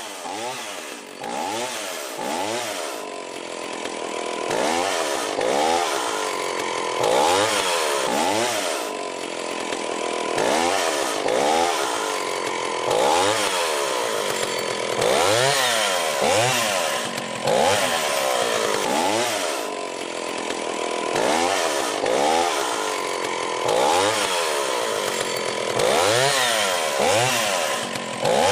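Chainsaw cutting through the thick flesh of a giant pumpkin, its engine revving up and dropping back over and over, about once a second.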